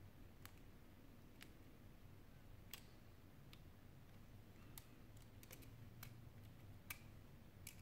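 Faint, irregular small clicks and taps of smartphone parts being handled as a Sony Xperia Z5 Compact's main board and flex-cabled components are fitted into its frame. About a dozen clicks, coming closer together in the second half.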